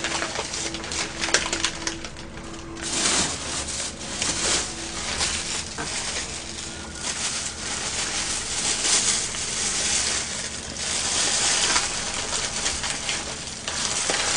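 Paper and black plastic bags being handled and wrapped up, crinkling and rustling with irregular crackling that grows louder about three seconds in.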